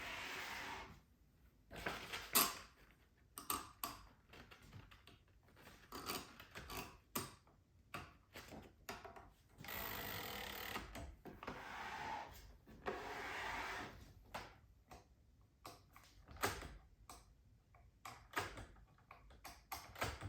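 1946 Smith Corona Clipper portable typewriter being worked by hand: an irregular run of sharp mechanical clicks and clacks, with a few longer sliding noises of about a second each, as the carriage and margin stops are moved.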